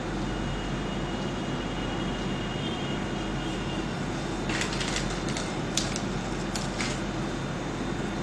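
Steady background hum and hiss, with a few light ticks about halfway through.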